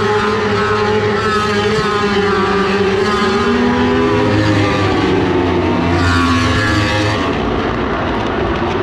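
Racing motorcycle engines out on the circuit, several at once, their pitch rising and falling as the bikes accelerate and shift. The sound drops off somewhat about seven seconds in.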